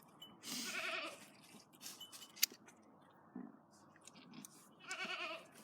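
Goat bleating twice, a wavering call about half a second in and another near the end, with a few sharp clicks from the hoof trimmers in between.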